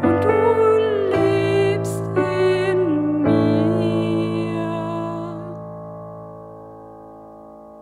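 A woman singing the closing line of a German worship song to piano accompaniment. She holds the last note while the final piano chord rings on and slowly fades away.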